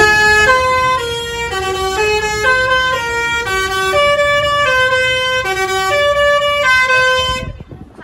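Tour bus telolet horn, a set of electric-valve air horns, playing a tune of steady notes at about two a second, then cutting off suddenly near the end.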